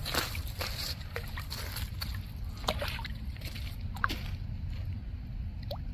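A small yellow bullhead catfish released into shallow water with a light splash and slosh, among a few short knocks and clicks of handling.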